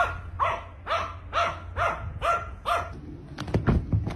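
A small dog barking over and over at an even pace, about two barks a second, seven in a row. A few sharp knocks follow near the end.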